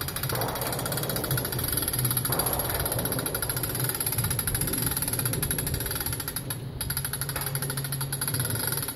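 Hand-crank winch on a US Tower MA-40 tubular crank-up tower being cranked to raise the mast, giving a rapid, steady clicking with a brief break about two-thirds of the way through.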